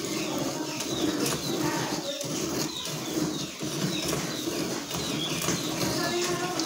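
Milk squirting from a cow's teats into a steel bucket of frothy milk during hand milking, a steady rhythm of swishing squirts as the hands squeeze in turn.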